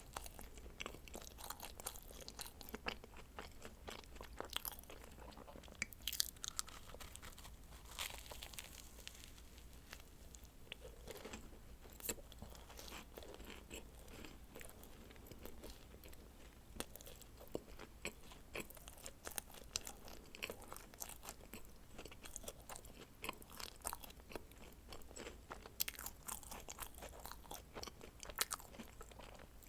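Close-miked eating sounds of dacquoise: bites and chewing with many small sharp clicks from the meringue shells and filling, coming thickly in the first several seconds and near the end, with a sparser stretch in between.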